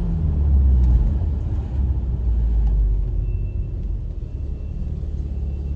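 Infiniti VQ35HR V6 running through a Manzo stainless-steel catback exhaust: a steady low exhaust rumble as the car cruises, easing off slightly.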